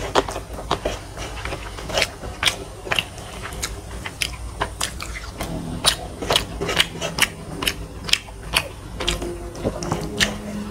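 Close-up eating sounds: wet chewing and lip smacks, mixed with fingers squelching and mashing rice and curry on a metal plate. It is an irregular patter of sharp little clicks, several a second.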